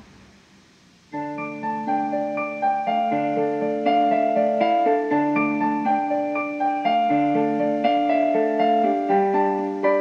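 Background music: a keyboard playing held notes and chords, starting about a second in after a short pause.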